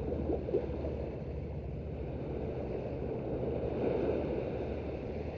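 Small waves breaking and washing up on a sandy shore, with wind rumbling on the microphone; the wash swells a little about four seconds in.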